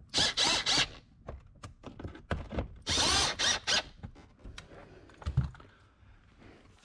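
Snap-on cordless drill/driver run twice in short bursts of under a second, about three seconds apart, working the bolts that hold an aftermarket rear fog lamp housing in the bumper so it can be shifted into a flush fit. Clicks and a knock from handling the tool and bumper come between.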